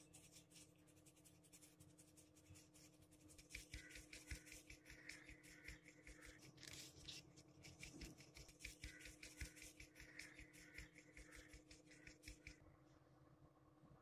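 Ground spice powder sifted through a hand-shaken sieve over a steel plate: a faint, rhythmic rasping of about four or five strokes a second, stopping about a second before the end.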